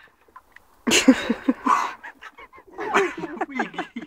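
A person's loud yelp over a rush of noise about a second in, then a quick run of short, honking vocal cries, about five a second: shrieks and gasps at the shock of freezing paddling-pool water.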